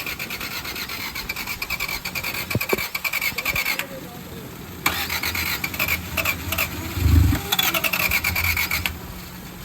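Honda F22 four-cylinder engine being cranked by its starter motor, turning over fast without running, in two long spells with about a second's pause between. The engine has just had floodwater cleared from its cylinders and is being tried again to start. A short low thump comes about seven seconds in.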